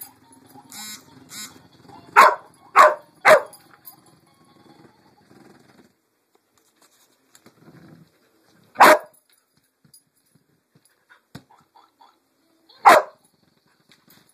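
Australian shepherd barking at a pink pig Bumble Ball toy: three quick barks a couple of seconds in, then single barks about six and ten seconds later.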